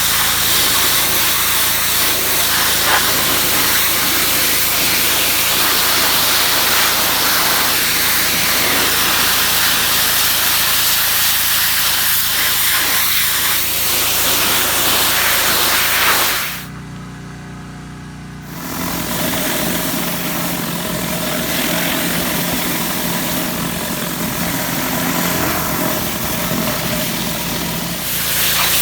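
Pressure washer spraying: a steady hiss of the water jet over the running engine. The hiss stops for about two seconds a little past the middle, then starts again.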